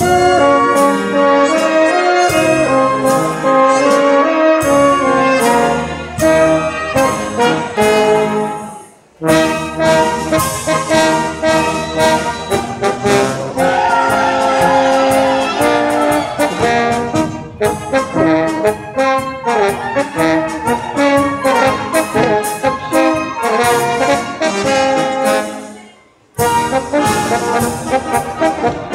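Brass band playing lively folk dance music with a steady beat, stopping briefly twice, about nine seconds in and again near the end, before starting up again.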